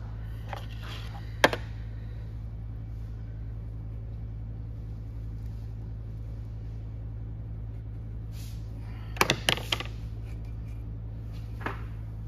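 Steady low hum of an electric pottery wheel running, with a few sharp knocks: one about a second and a half in, a quick cluster of four or five about nine seconds in, and a lighter one near the end.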